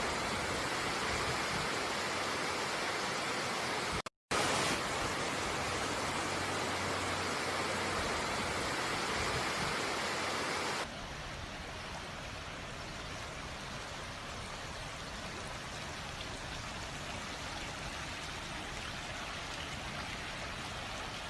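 Flood-swollen river rushing as a steady noise. It breaks off for a split second about four seconds in, and becomes quieter and duller about eleven seconds in.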